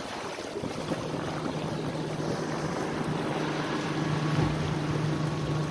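A passing motorboat's engine running as a steady low hum, starting about half a second in, over wind and water hiss against the sailboat's hull.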